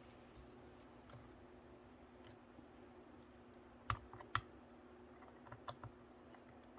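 Mostly quiet, with a faint steady hum and a few small, sharp clicks: two close together about four seconds in, then lighter ticks. These are small tools and tiny metal parts being handled while an HO-scale model locomotive is taken apart.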